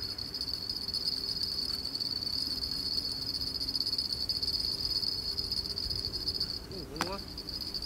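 An insect trilling: one steady high-pitched trill, unbroken except for a brief dip near the end. A low rumble lies underneath.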